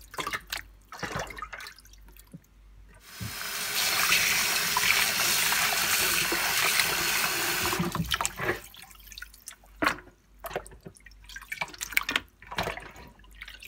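Kitchen tap running in a loud, steady rush onto raw chicken pieces as they are rinsed by hand in a bowl. The tap comes on about three seconds in and stops near eight seconds. Before and after it there are small splashes and drips from the wet chicken being handled.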